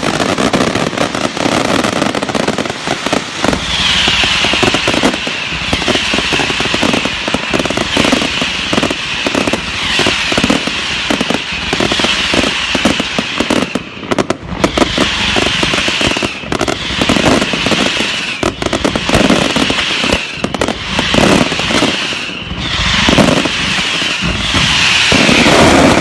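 Fireworks going off in a dense, continuous run of rapid crackling bangs. From a few seconds in, high whistles that fall slightly in pitch repeat about once a second over the crackle.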